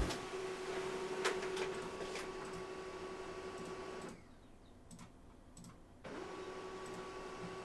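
Faint steady hum with a few soft clicks; the hum cuts out for about two seconds in the middle, then returns.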